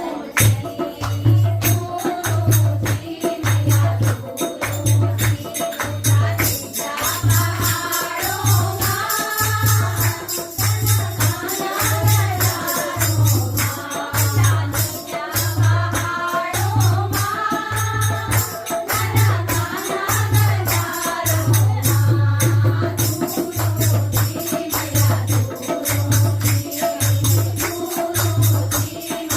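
Song music with a steady low beat about once a second and jingling percussion like a tambourine; a singing voice carries the melody through the middle stretch.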